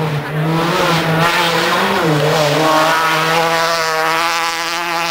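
Rally car engine revving hard as it passes, its pitch dipping about two seconds in and then climbing and holding high.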